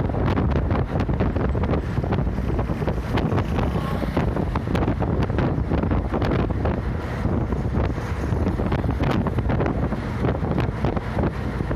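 Interior of a route bus driving along a highway: steady engine and road rumble with frequent rattles, and wind buffeting the microphone.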